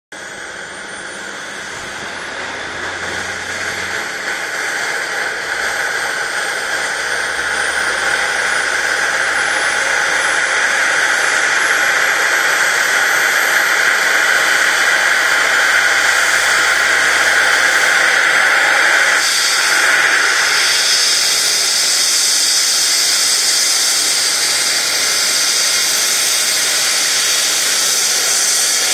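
Eurocopter EC135 air ambulance helicopter starting up on the ground. A rising turbine whine grows louder over the first ten seconds or so, then settles into a steady high whine and hiss. About twenty seconds in, the whine shifts higher.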